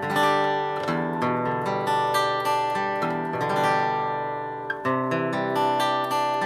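1975 Yamaha FG-150F acoustic guitar being played: chords strummed and left ringing, with a new chord about every second.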